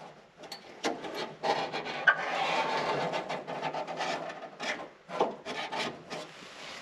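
Paint marker scraping along a sheet-metal car body panel as a line is drawn, with scattered sharp clicks and taps.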